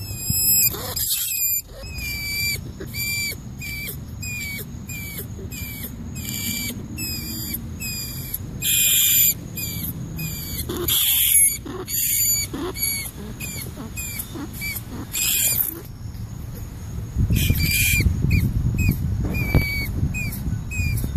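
Rat squeaking: a long run of short, high chirps about two a second, broken by several louder, harsher squeals, over a low rumbling background.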